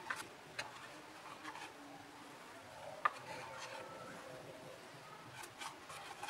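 Faint, scattered clicks and light taps, the loudest about three seconds in, over quiet room noise.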